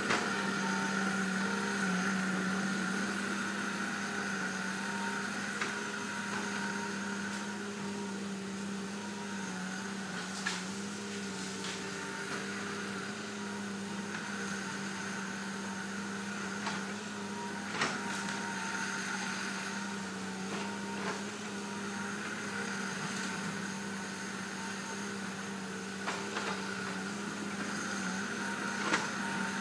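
Heavy diesel earthmoving machinery, an excavator or bulldozer, running steadily at a constant engine speed, with a few short sharp knocks now and then.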